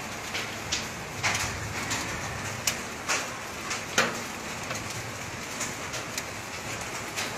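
Volcanic tephra fall on a roof: small stones and gritty ash-laden raindrops hit it in irregular sharp taps, a few each second, over a steady hiss of falling rain and ash.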